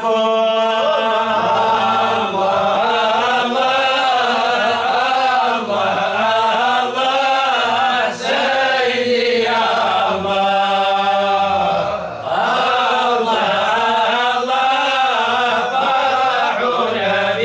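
Unaccompanied Sufi devotional chant (inshad) in Arabic, a male lead singer's voice carrying long, wavering held notes.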